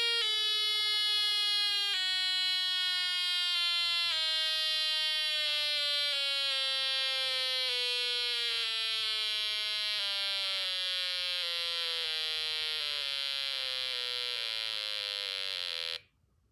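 Snap Circuits doorbell circuit sounding an electronic buzzy tone through its small speaker. The notes slowly sag in pitch and come shorter and faster as the capacitor keeping it going runs down. It cuts off suddenly near the end.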